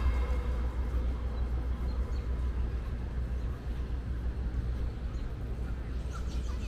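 Outdoor park ambience: a steady low rumble under an even background hiss, with a few faint short chirps.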